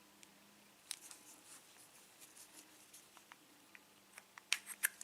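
Faint scattered metal clicks and taps from handling a pin-tumbler Euro cylinder lock as it is taken apart, with a quick run of sharper clicks about four and a half seconds in.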